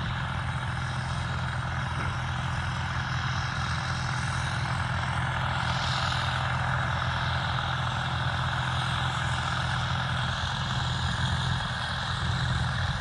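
John Deere 9700 combine running steadily while cutting wheat: a constant low engine drone under an even rushing noise from the machine.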